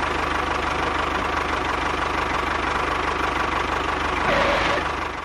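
A small motor running steadily with a fast, even pulse, getting slightly louder about four seconds in, then cutting off abruptly near the end.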